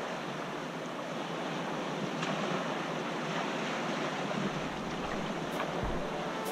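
Steady rush of wind and sea waves heard on open water, with low wind buffets on the microphone near the end.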